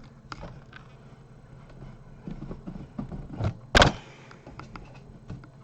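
Plastic clicks and knocks from a cordless vacuum's see-through cleaner head being handled and turned over, with one sharp, loud clack near four seconds in.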